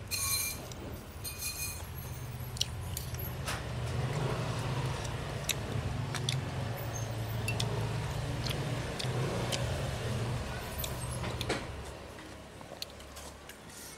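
A stainless spoon and fork clink against a ceramic bowl, the first strike near the start ringing briefly, with scattered lighter clinks after it. Under them a motor vehicle engine runs with a steady low hum that fades out near the end.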